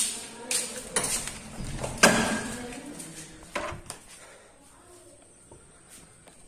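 A wooden door with a metal latch bolt being handled, making a few sharp knocks and clacks. The loudest comes about two seconds in and rings briefly, and it goes quiet after about four seconds.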